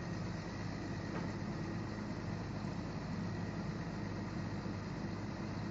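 Excavator's diesel engine running steadily with an even low hum.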